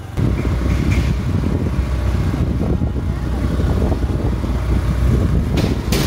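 Motor vehicle on the road, a dense, uneven low rumble that comes in abruptly.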